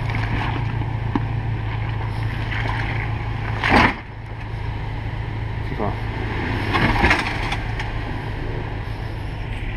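Jeep Wrangler's 3.6-litre V6 running at low revs as the Jeep crawls through mud and over rocks. A loud, sharp sound stands out about four seconds in, and another around seven seconds in.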